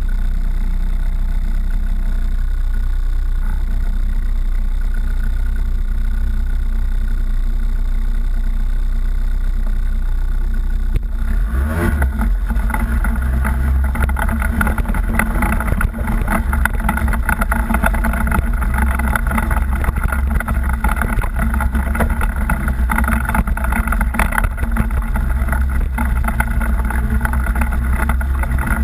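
Off-road vehicle engine running as it crawls a rocky trail, a steady drone that grows louder and rougher about eleven seconds in as it picks up speed over the rocks.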